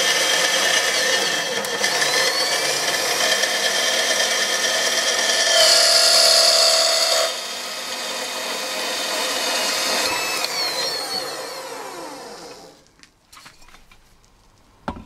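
Elmos 209 small metal-cutting band saw running at top speed, its blade cutting through a metal profile, louder for a second or so about six seconds in. About ten seconds in the whine falls in pitch as the saw winds down, and it dies away a couple of seconds later.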